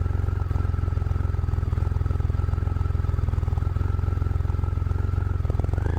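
Triumph three-cylinder motorcycle engine running at a steady, unchanging pace, with a faint steady whine above it.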